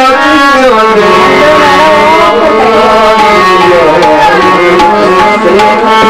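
Live Punjabi folk music: a harmonium plays the melody with hand-drum strikes. A singer's voice trails off about a second in, leaving the instruments on their own.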